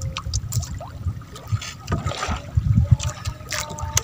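Seawater sloshing and trickling, with a short splash about halfway through and scattered clicks and knocks.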